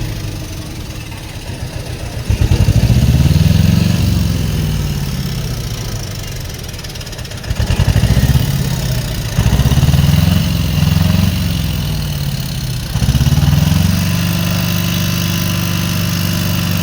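Heavy diesel engine revving hard in about four surges, each climbing in pitch and falling back, then running steadily near the end.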